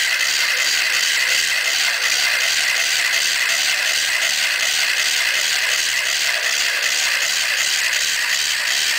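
Small battery-powered electric gear motor driving a model crawler tractor, whirring steadily with the gears and block-and-belt tracks clicking and rattling in an even rhythm.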